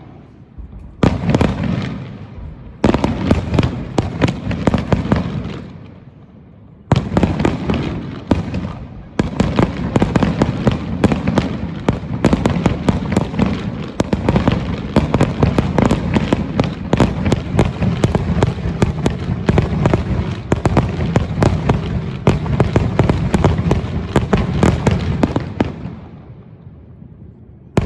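Aerial fireworks display: a few separate booming shell bursts in the first seconds, then from about nine seconds in a dense barrage of rapid bangs and crackles, which dies away near the end.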